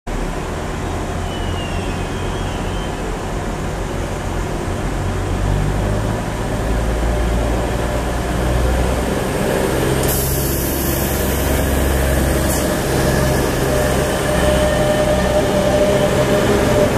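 DSB intercity train accelerating away from a station platform, its low drone growing gradually louder as the cars pass close by. About ten seconds in a high hiss cuts in and stops about two and a half seconds later.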